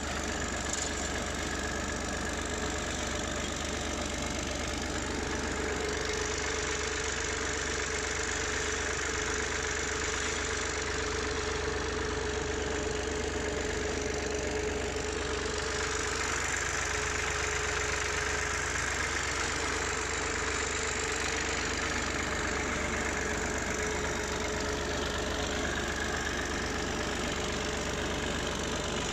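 A compact Massey Ferguson tractor's diesel engine runs steadily as the tractor drives across a tilled field, pulling a soil implement.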